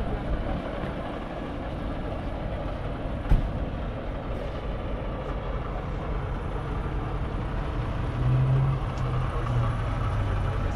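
A vehicle engine running steadily under a rumbling outdoor background, with a single sharp knock about three seconds in. The low engine note grows louder about eight seconds in.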